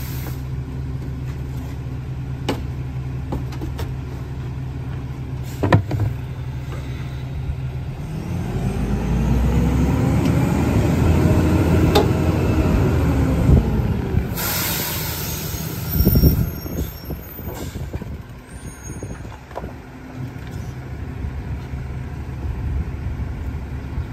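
McNeilus rear-loading garbage truck idling with a few sharp knocks as a can is banged on the hopper. A third of the way in the engine revs up for about six seconds while the hydraulic packer cycles, then drops back to idle with a short air hiss and a loud thump from the packer.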